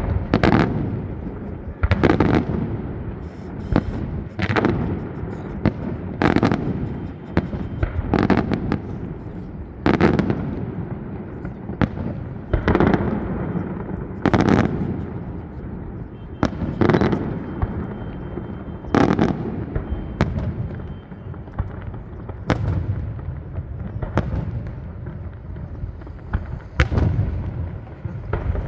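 Aerial fireworks display: shells bursting with loud booms roughly every two seconds, about fourteen in all, with crackling and a constant low rumbling echo between them.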